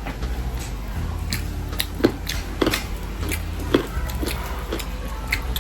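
Close-up eating sounds: irregular wet clicks and smacks of chewing, about two a second, over a steady low hum.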